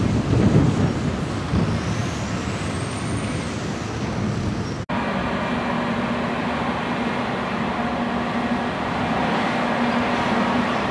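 Dockside machinery and engines running at a cargo port: a steady low rumble. It cuts out briefly about five seconds in, and then a steady droning engine hum carries on.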